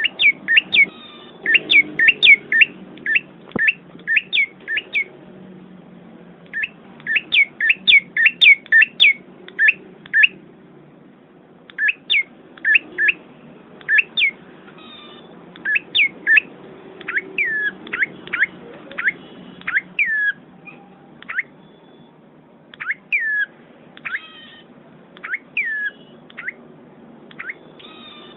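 A small forest bird chirping over and over: short, sharp notes that drop in pitch, given in quick runs of several with brief pauses between runs.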